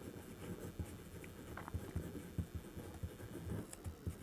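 Pen writing on paper: faint, irregular short scratching strokes as a word is written by hand.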